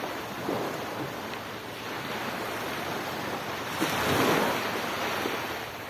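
Sea waves washing onto the beach in a steady rush of surf, one wave swelling louder about four seconds in, with wind on the microphone.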